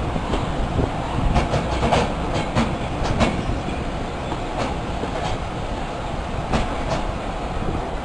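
Passenger train running on jointed track, heard from an open coach window: the carriage wheels clicking over the rail joints over a steady rolling rumble. The clicks come thickest in the first three seconds or so and grow sparser after.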